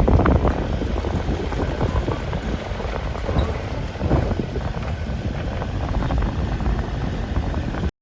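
4WD vehicle driving over a rough track: an uneven rumble of engine and tyres, with wind buffeting the microphone. It cuts off suddenly near the end.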